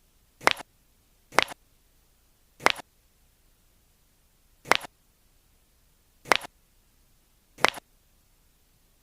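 Six sharp cracks, each a quick double snap, spaced unevenly over about seven seconds.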